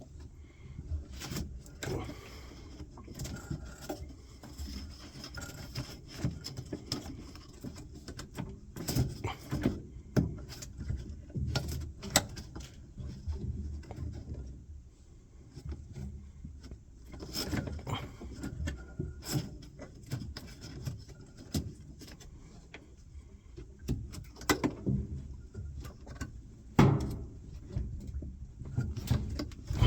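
Hands and tools working on a washing machine during a drive belt replacement: irregular clicks, knocks and light metallic rattling, with one sharp louder knock near the end.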